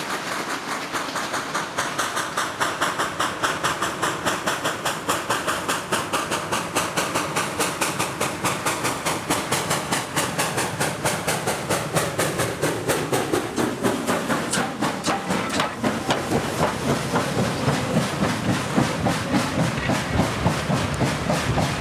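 Coal-fired 2-8-0 steam locomotive working hard with a freight train, its exhaust beating out in a fast, even rhythm over a steady hiss of steam as it comes up and passes close by. The sound drops in pitch about two-thirds of the way through.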